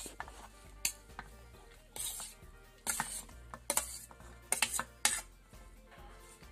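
Steel spoon scraping chopped radish and onion off a steel plate into a black pot: a run of sharp metal scrapes and clinks, about seven in all, spaced roughly a second apart.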